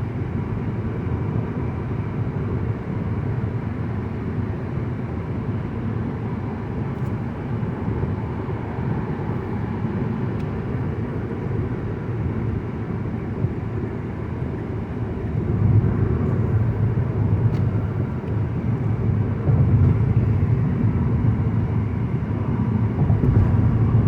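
Steady road and engine noise inside the cabin of a 2009 Mazda 5 cruising at about 70 mph on the highway, a low rumble that grows louder about two thirds of the way through.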